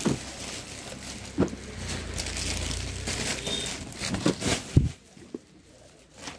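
Rustling and crinkling of suit fabric and its packaging being handled and unfolded, with a few sharp taps and knocks. It goes much quieter about five seconds in.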